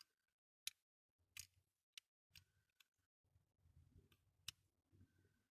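Faint, irregular clicks and taps of small diecast toy-car parts being handled and pressed together, with soft handling noise between them.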